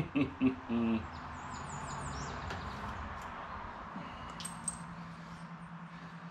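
Birds chirping, a run of quick high chirps a second or so in and another brief call past the four-second mark, over a steady low hum that pulses gently. A short bit of voice opens it.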